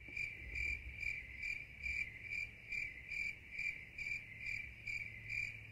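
Cricket-chirping sound effect: an even, repeating chirp a little over twice a second over a faint low hum, cut in and out abruptly. It is the stock "crickets" gag for an awkward silence.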